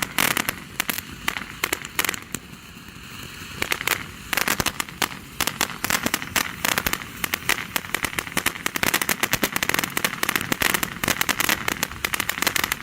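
A consumer ground firework going off in a dense, rapid crackle of small pops over a hiss. The crackling thins to mostly hiss for a couple of seconds early on, then builds back up.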